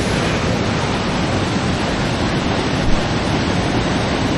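Waterfall rushing: a loud, steady, even noise of falling water.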